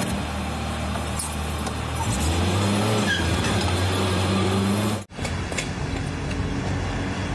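Pickup truck engine running at idle, its note rising about two seconds in and holding there. The sound cuts out briefly about five seconds in, and a steady low hum follows.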